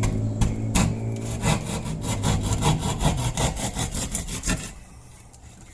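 Sawing with quick, even back-and-forth strokes, cutting the wall opening for an electrical outlet box, over a steady low hum. Both stop near the end.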